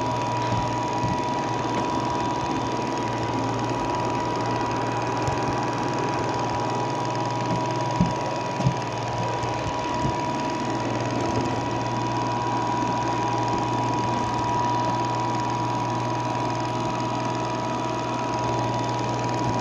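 Robot vacuum cleaner running: a steady motor hum with a constant high whine, and two brief knocks about eight seconds in.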